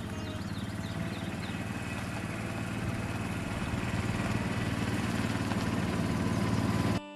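An engine running steadily with an even pulse, slowly getting louder, then cut off abruptly near the end.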